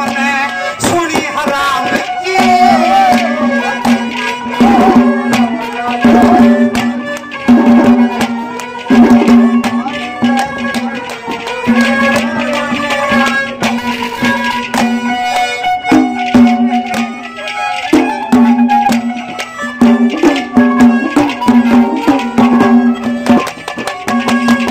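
Instrumental interlude of Haryanvi ragni folk music: a melody line over a recurring held note, driven by a steady hand-drum rhythm.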